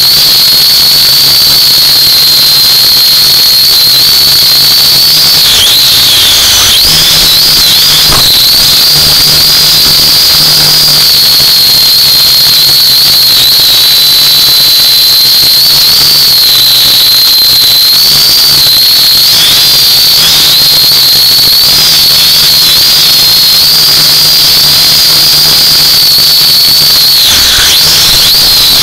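UDI U818A-1 quadcopter's four small electric motors and propellers whining, recorded very loud by its onboard camera. A steady high-pitched whine over a low hum, wavering about six seconds in and dipping in pitch near the end as the throttle changes.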